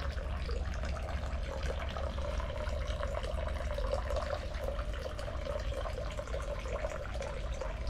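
Water running steadily into the stone basin of a Shinto shrine's temizuya, the purification fountain where hands are rinsed before prayer.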